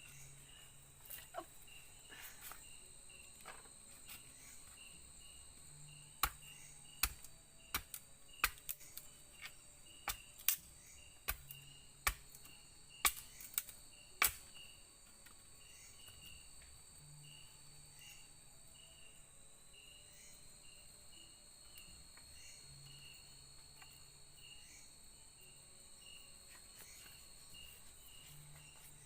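Forest insects calling: a steady high-pitched drone with a chirp repeating about twice a second. In the middle, about a dozen sharp cracks come over several seconds.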